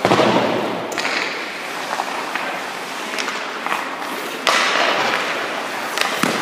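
Hockey skate blades scraping and hissing on the ice, with a louder scrape starting about four and a half seconds in, and several sharp clicks of puck and stick.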